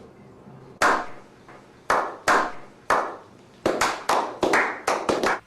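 Hand claps: about eleven sharp, separate claps at an uneven pace, coming faster toward the end.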